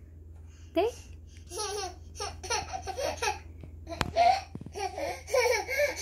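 Toddler laughing in a series of short, gleeful bursts, with a sharp click about four seconds in.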